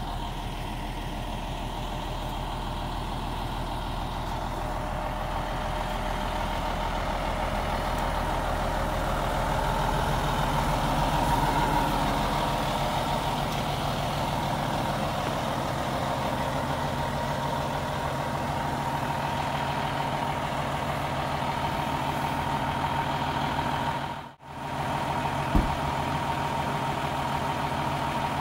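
Fire engine's diesel engine idling steadily, a low rumble with a constant high whine over it. The sound cuts out for a moment a few seconds before the end.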